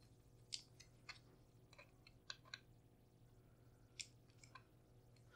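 Faint, scattered small metallic clicks and ticks, about seven spread irregularly, as a hex key is turned in a screw on a shotgun's barrel assembly to snug it hand tight.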